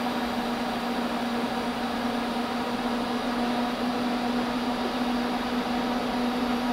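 TIG welding arc on stainless steel: a steady hum with an even hiss over it, unbroken while the torch is worked around a fitting.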